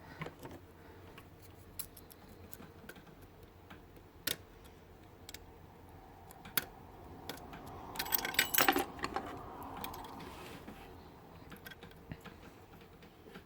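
Scattered small metallic clicks and scrapes of lock picks and a tension tool working in a pin-tumbler lock, with a short burst of jingling, rattling metal about eight seconds in.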